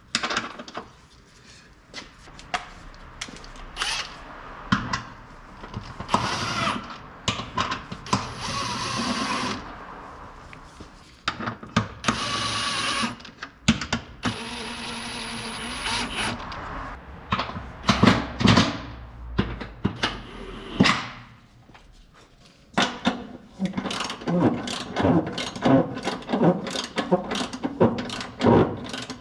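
Mechanic's tools working on car suspension bolts: scattered clanks and knocks, several short sustained power-tool bursts, then fast repeated clicking like a ratchet wrench through the last few seconds.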